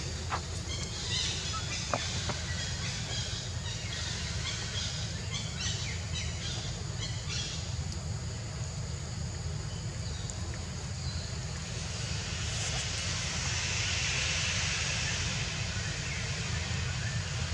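Outdoor ambience: a steady low rumble, with short high chirps in the first half and a hiss that swells up about twelve seconds in and fades a few seconds later.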